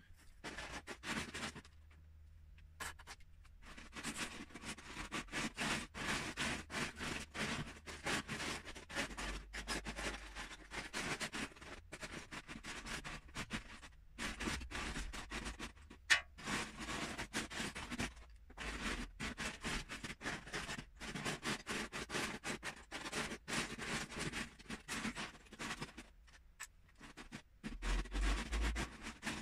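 Loose Lego bricks clattering as a hand rakes and stirs through them in a plastic storage tub: long runs of dense, rapid clicking, with a few brief pauses.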